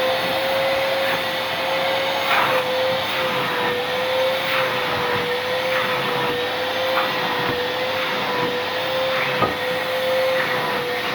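Vacuum cleaner running steadily: a high motor whine over a rushing hiss, with a few light knocks, once about two seconds in and once near the end.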